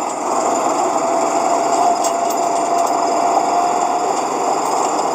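Gator utility vehicle's engine running as it drives over a pasture: a steady drone with a thin held whine that fades out about four seconds in.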